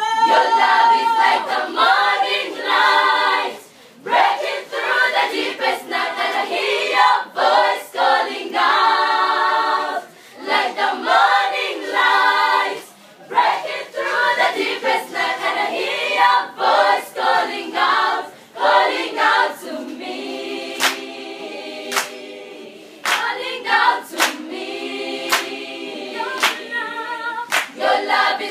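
Children's choir singing together in short phrases with brief breaks. In the last third a sharp beat, about once a second, keeps time under the voices.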